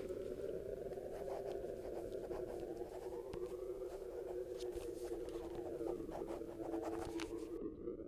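Pen scratching on a notebook page in short, quick strokes, over a steady synthesizer drone with slowly rising and falling tones. The scratching stops near the end.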